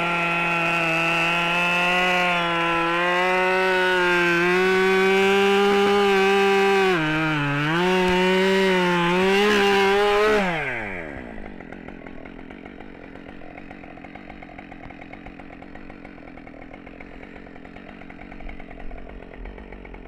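Husqvarna 572 XP two-stroke chainsaw running at full throttle while bucking a large hackberry trunk, its pitch dipping a few times as the chain bogs in the cut. About ten seconds in the throttle is released and the engine winds down quickly, leaving a much quieter steady background.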